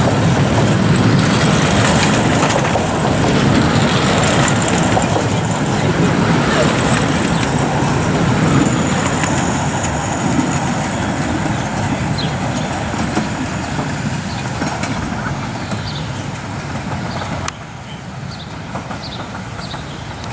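A 15-inch-gauge miniature train's passenger coaches rolling past and away, a dense rumble of wheels on rail that is loudest at first and slowly fades. About three-quarters of the way through, the sound drops abruptly, leaving a quieter rumble with a few light clicks.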